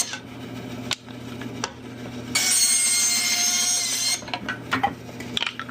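Bandsaw running with a steady hum, its blade cutting through a piece of firewood for about two seconds starting about two and a half seconds in. A couple of sharp knocks come before the cut, and a few light clicks after it.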